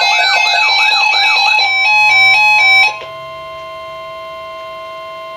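NOAA weather radio sounding a tornado watch alert. Its warbling alarm rises and falls several times a second, then changes about a third of the way in to a short run of stepped beeps. It then drops to a steady, quieter long tone, the broadcast's warning alarm tone.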